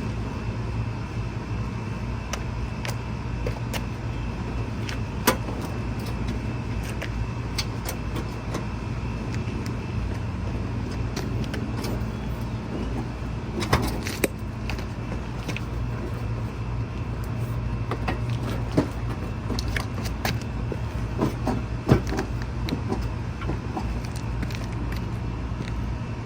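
Steady low hum of a running vehicle engine, with scattered sharp metallic clicks and clinks, four of them standing out.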